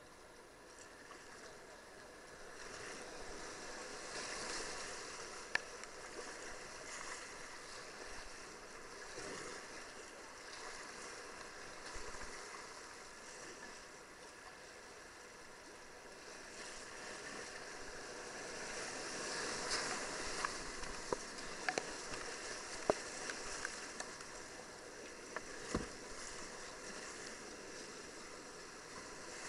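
Rushing white water of an artificial whitewater course, heard from a kayak, swelling louder past the middle. Scattered sharp knocks and splashes from the boat and paddle come in the louder stretch.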